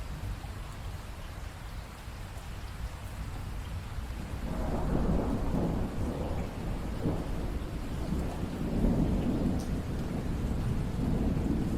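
Steady rain falling, with a low rumble of thunder rolling in about four seconds in and carrying on through the rest.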